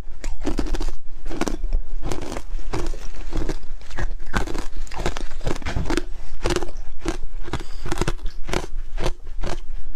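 Hard ice being bitten and chewed, in a rapid, irregular run of sharp crunches, several a second.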